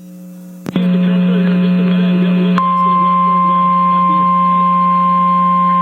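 Emergency alert warning alarm tone: a single steady high tone near 1 kHz that switches on abruptly about two and a half seconds in, over a steady low hum. Before it comes a short, noisy, wavering stretch.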